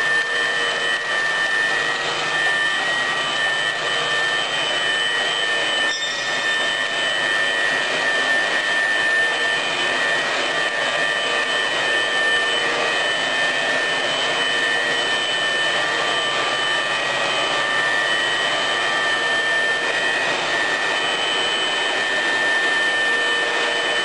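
Welding electrode wire cutting machine running steadily: a constant high whine over a mechanical hiss, with a single click about six seconds in.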